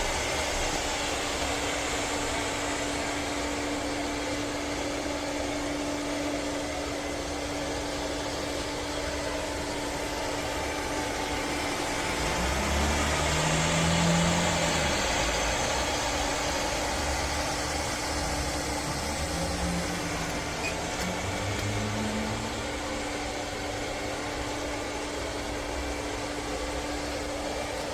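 Robot vacuum cleaner running: a steady whirr of its suction fan and brushes with a constant hum, growing a little louder with a low rumble about halfway through.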